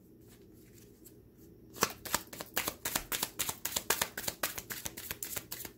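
A deck of oracle cards being shuffled by hand: faint handling at first, then a run of rapid card clicks and slaps from about two seconds in.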